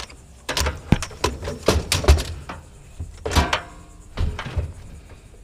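Scrap metal pieces knocking and clanking as they are shifted and fitted into place in a load, a run of irregular bangs with one ringing metallic clang a little past halfway.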